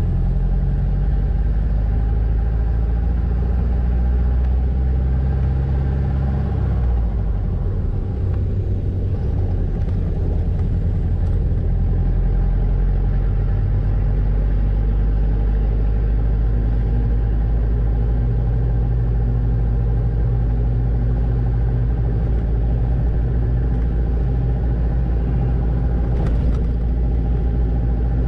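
Off-road 4x4's engine running and tyres rumbling along a dirt road, heard from inside the cab. The engine note changes about six and a half seconds in, then holds steady.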